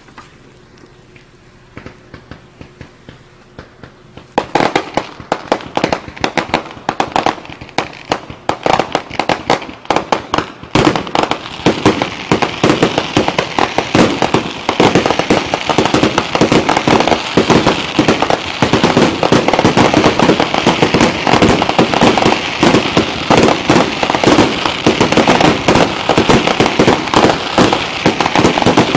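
Aerial fireworks going off in a dense, rapid string of sharp bangs and crackles. A few faint pops come first, the barrage starts about four seconds in, and it grows thicker and louder from about eleven seconds on.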